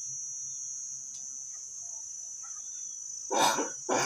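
Hill myna imitating a cough: two harsh coughs about half a second apart near the end, over a steady high cricket trill.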